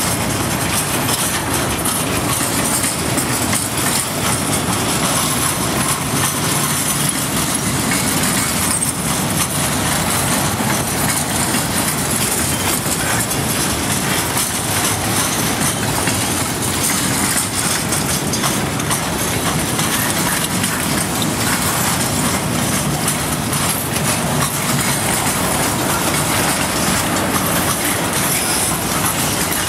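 Freight train boxcars rolling past close by: a steady, unbroken noise of steel wheels running on the rails.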